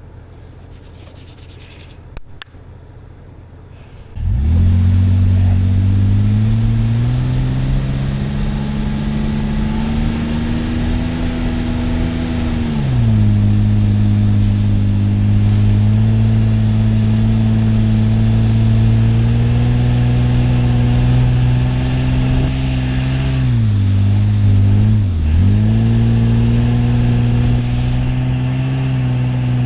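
Off-road truck engine pulling under load. It starts abruptly about four seconds in and rises in pitch, then holds steady, drops to a lower pitch about halfway, and dips twice briefly near the end as the revs ease off and pick up again.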